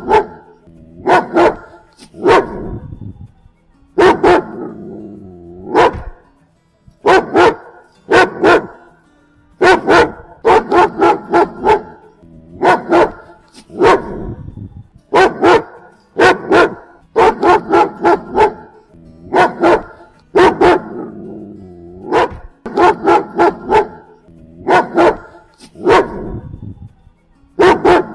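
German Shepherd barking repeatedly, in quick runs of one to four loud barks with short pauses between the runs.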